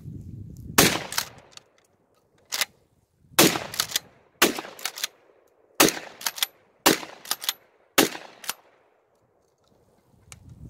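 Charles Daly 301 Tactical 12-gauge pump-action shotgun fired about six times in quick succession, each loud shot followed by the clack of the pump being racked to chamber the next shell.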